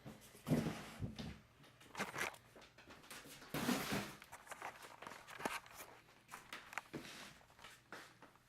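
Handling noise from a cardboard kit box being shifted and turned: irregular rustles, scrapes and light knocks.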